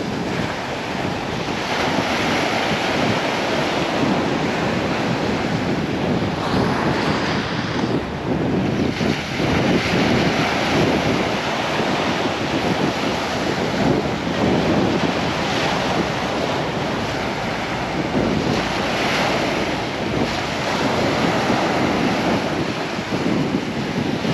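Small waves breaking and washing up a sandy beach, swelling every few seconds, with wind buffeting the microphone.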